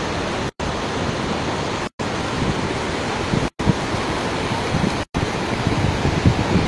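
Fast mountain stream rushing over boulders: a steady wash of water noise, broken by short dropouts about every second and a half.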